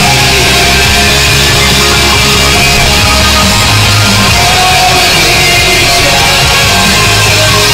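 Loud rock music at a steady, high level.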